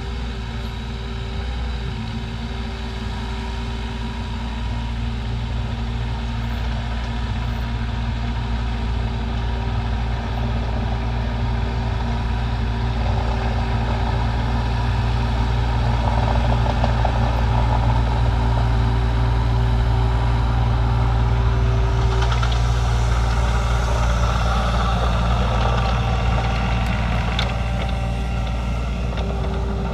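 Diesel engine of heavy earthmoving machinery running steadily, growing louder through the middle, with clattering and scraping over it in the second half.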